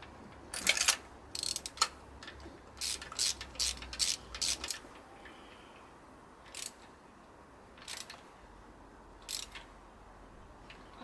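A socket ratchet wrench clicking in short runs of sharp ticks as a new spark plug is wound into the engine.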